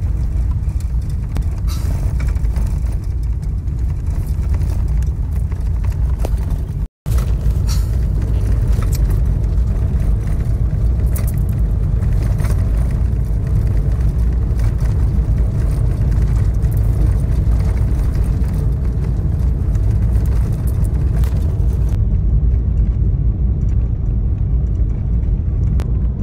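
Steady low rumble of a car driving, heard inside the cabin: engine and road noise. The sound cuts out completely for a moment about seven seconds in.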